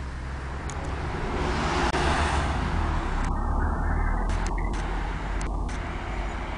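Road traffic: a steady low road rumble, with a passing vehicle whose tyre and engine noise swells to its loudest about two seconds in and then fades.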